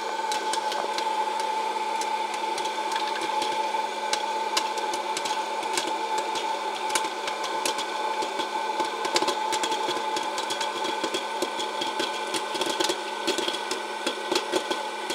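Presto PopLite hot air popcorn popper running, its fan motor giving a steady whine, while jumbo popcorn kernels pop rapidly and irregularly inside and tumble out of the plastic chute.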